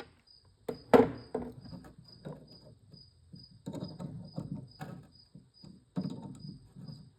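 Small steel parts of a ratchet head (pawls, springs and housing) clicking and clinking as they are handled and fitted, with one sharp knock about a second in. A faint, high chirp repeats steadily about two and a half times a second underneath.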